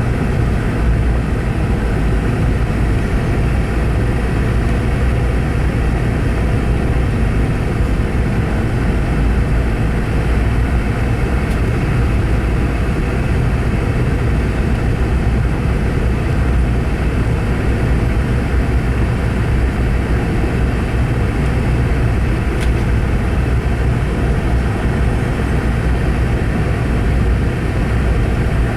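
Steady cabin noise inside a Boeing 717: its two rear-mounted Rolls-Royce BR715 turbofans and the airflow make a constant deep rumble with a hiss over it, without rises or falls.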